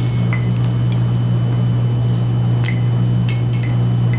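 A steady low electrical hum, with a few light clicks and clinks of dishes or utensils scattered through it.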